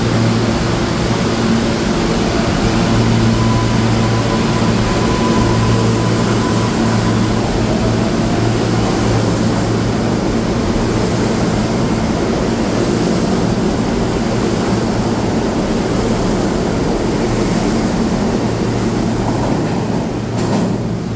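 R143 subway train pulling out of the station: a steady low hum with wheel noise on the rails, and a faint motor whine that rises in pitch as it picks up speed. The sound falls off near the end as the train leaves.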